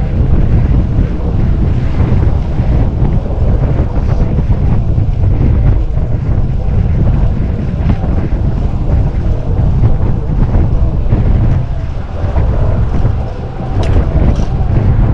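Steady wind buffeting the microphone of a cyclist riding at speed, with road noise mixed in. A brief sharp click near the end.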